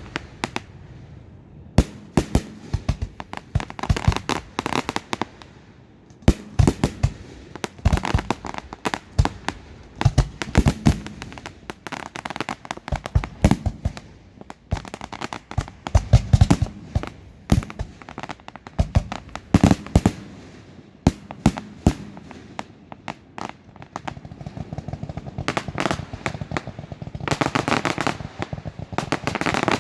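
Fireworks display: shells bursting in sharp bangs at irregular intervals, some singly and some in quick clusters, with a dense rapid run of bangs near the end.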